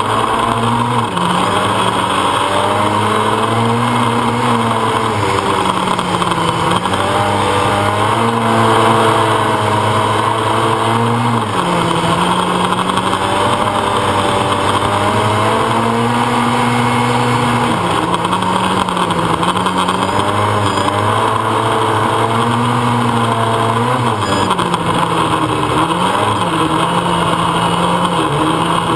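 Open-wheel formula race car's engine heard onboard, its revs rising and falling repeatedly with sudden drops in pitch at gear changes, over a steady rush of wind noise.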